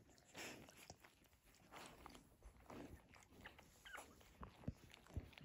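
Faint, irregular snuffles and small suckling noises from a litter of newborn puppies nursing against their mother dog, with a few soft sniffs.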